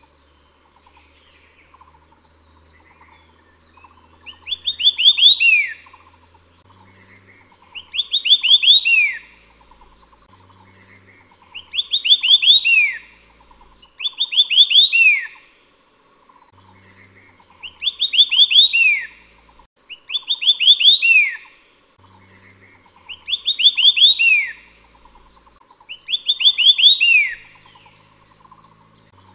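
White-eared sibia singing: a phrase of quick rising whistled notes ending in one falling note, repeated about every three seconds, eight times. A faint steady pulsing buzz runs underneath.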